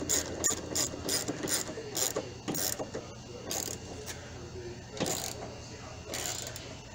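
Ratchet wrench clicking as a bolt is turned: a quick run of clicks, about two or three a second, for the first few seconds, then a few spaced-out strokes.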